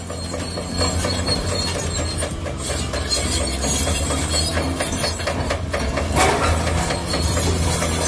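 Diesel engine of a tracked heavy machine running steadily under the metallic clanking and squealing of its steel crawler tracks as it moves, with a brief louder squeal about six seconds in.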